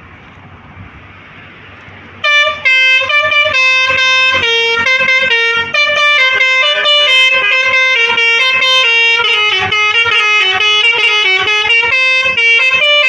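Multi-tone 'telolet' air horn of a Putri Tunggal bus playing a loud melody of quickly changing notes, starting about two seconds in over a steady background noise.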